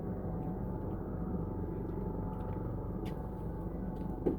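Boat engine running steadily, a low hum with no change in speed, with a faint tick about three seconds in.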